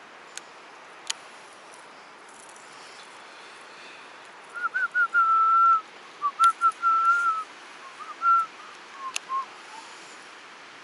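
A short tune of clear whistled notes over the steady rush of stream water. It starts a few seconds in with quick wavering notes, then held ones, and drops lower at the end. Two sharp clicks come near the start.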